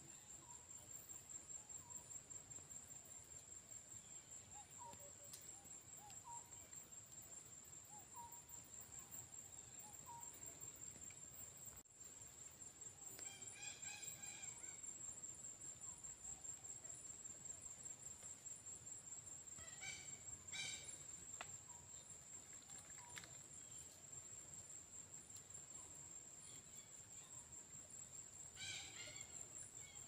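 Faint, steady high-pitched insect trill, like crickets, with soft chirps about once a second early on and a few brief bird calls near the middle and again near the end.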